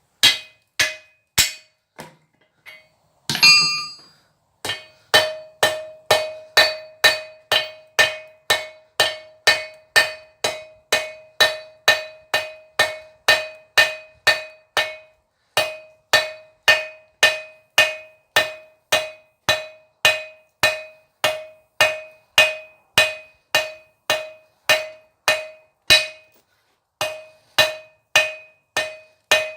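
Hand hammer striking a hot bar on an anvil at a steady rate of about two blows a second, each blow ringing at the same pitch, as a blacksmith forges the bar. A louder, longer-ringing clang comes about three seconds in, and the hammering stops briefly twice, once midway and once near the end.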